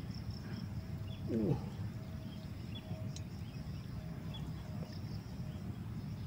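Quiet outdoor ambience: faint short high chirps repeat every half second or so over a low steady rumble. One brief call falls in pitch about a second and a half in.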